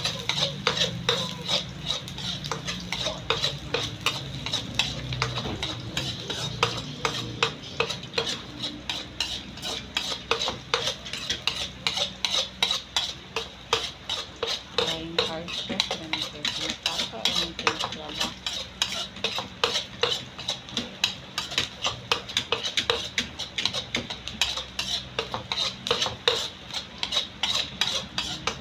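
Metal spatula scraping and clinking against a wok in quick, even strokes as chopped onion is stir-fried, with sizzling underneath.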